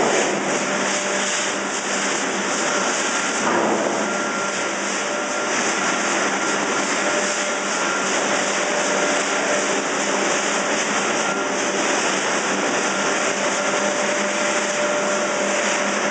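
Fish feed and pet food processing machinery running with a steady, even noise, a few faint constant tones under it.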